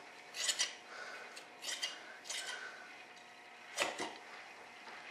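Scissors snipping fiberglass cloth in a few short, separate cuts, the loudest about four seconds in.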